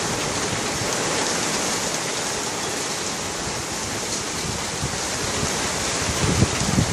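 Heavy rain pouring down in a steady hiss during a thunderstorm downpour, with a few low thumps near the end.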